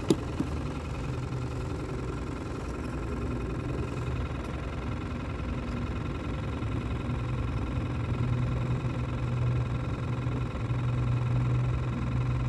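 A steady low mechanical hum and rumble, growing a little louder in the second half, with a sharp click at the very start.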